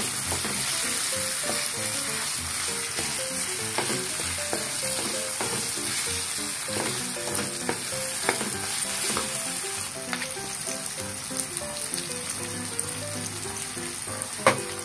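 Miso, onion, garlic, ginger and tomato sautéing in oil in an aluminium pan, sizzling steadily while a wooden spatula stirs and scrapes across the metal with scattered clicks. One sharper knock of the spatula on the pan comes near the end.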